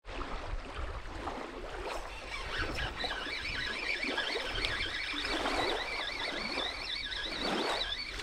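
Spinning reel being cranked to retrieve a lure: a squeaky whine that wavers up and down about twice a second, starting a couple of seconds in and stopping near the end, over a low rumble of wind on the microphone.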